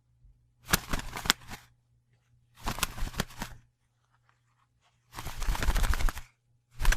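Wings flapping in short flurries: three bursts of rapid beats, each about a second long with brief silences between, the third a little longer, and a fourth flurry starting right at the end.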